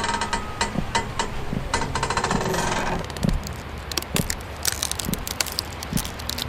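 Layered horror sound effect: a fast, dense rattle for about three seconds, then thinning out into scattered irregular clicks and low knocks.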